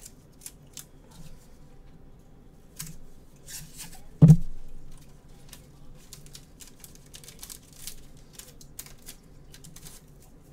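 Gloved hands handling trading cards and their packaging: scattered light rustles, crinkles and clicks, with one loud thud about four seconds in.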